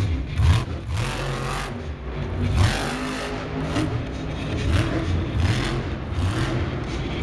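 Monster Mutt Rottweiler monster truck's engine revving hard in repeated surges of throttle as the truck drives and jumps. The loudest surges come about half a second in and again about two and a half seconds in.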